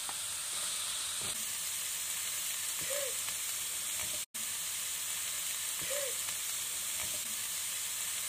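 Diced vegetables sizzling as they fry in oil in a nonstick wok, stirred with a wooden spatula, with a few faint scrapes of the spatula. The sound cuts out for an instant a little past the middle.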